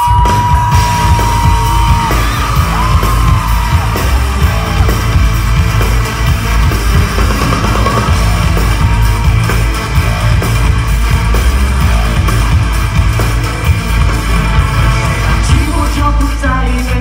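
Loud live dance-pop music played over an arena sound system, with a heavy, steady bass beat. Crowd yells come over it, including a high held cry in the first two seconds.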